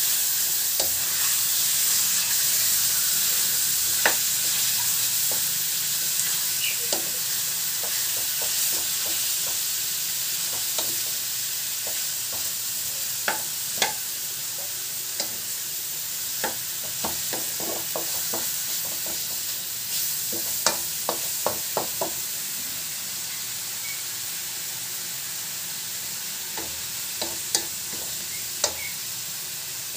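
Pieces of raw pork sizzling steadily in hot oil in a large metal wok as they are sautéed until fried, the sizzle easing slightly over time. A wooden spatula stirs the meat, its clicks and scrapes against the pan coming in scattered clusters, most around the middle and near the end.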